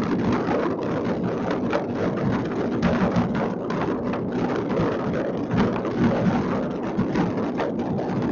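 Many fireworks going off at once across a city: a continuous rolling rumble of bangs and crackles, with no single burst standing out.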